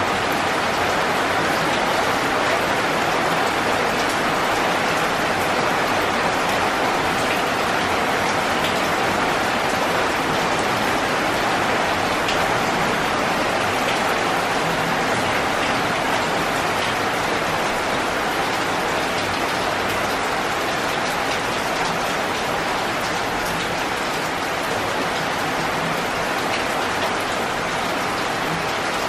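Heavy rain falling steadily on leaves and trees: a dense, even hiss at a constant level, with occasional faint drip ticks.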